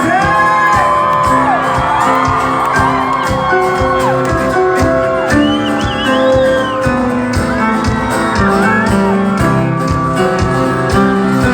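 Loud music with a steady drum beat and high, gliding calls or whoops sliding over it.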